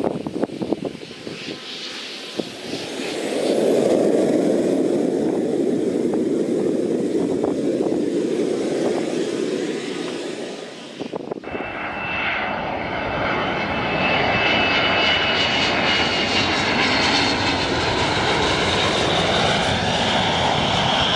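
Business jet engines running: a jet's engine noise swells about three seconds in and holds steady. About eleven seconds in it cuts suddenly to another jet with a steady high turbine whine over the rumble.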